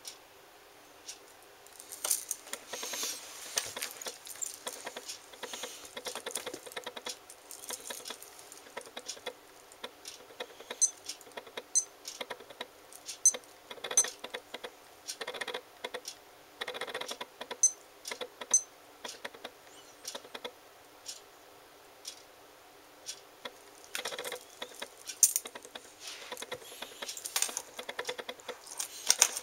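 Metal link bracelet and case of a Weide LED sport watch rattling and clicking as it is turned in the hand, with sharp clicks from its side push-buttons being pressed. The clicks come irregularly, several a second at times.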